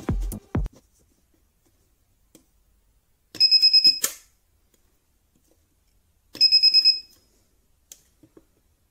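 Battery spot-welder board's buzzer giving two quick bursts of rapid high beeps, about three seconds apart, as the probe pen is pressed onto the nickel strip and the welder fires; the first burst ends in a short sharp snap.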